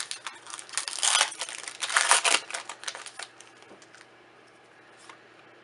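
Foil wrapper of a trading-card booster pack crinkling and tearing as it is opened, loudest in two bursts about one and two seconds in. Lighter rustles and clicks follow and die away after about four seconds.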